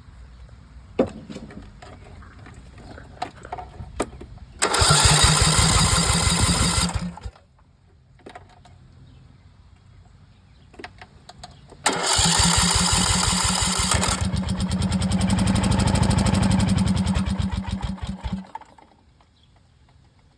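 Starter cranking the 21 hp Briggs & Stratton engine of a Craftsman riding mower in two attempts, a short one of about two seconds and then a longer one of about six seconds, without the engine staying running. The owner suspects the engine is being starved of fuel.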